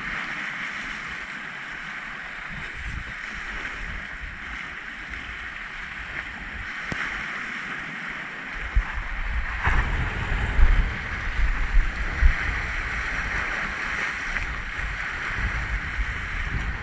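Sea waves washing against a rocky shore in a steady hiss, with gusts of wind buffeting the microphone from about nine seconds in.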